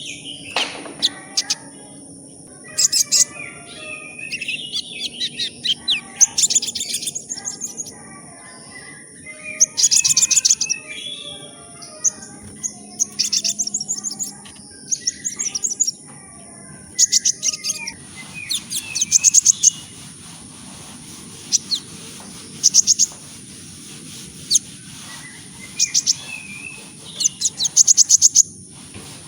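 A sunbird of the kind sold in Indonesia as 'kolibri ninja' singing: short, rapid phrases of fast, high ticking and twittering notes, repeated every second or two, the kind of fast, dense song used to train a white-rumped shama.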